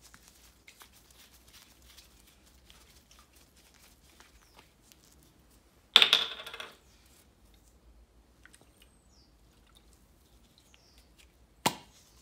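Gloved hands handling and opening a metal can of engine flush with a plastic cap: faint clicks and rustles, a loud noisy burst about six seconds in that fades within a second, and a sharp knock near the end.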